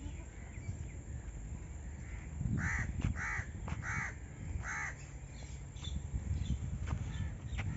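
A bird gives four short calls in quick succession, about two thirds of a second apart, over a low background rumble.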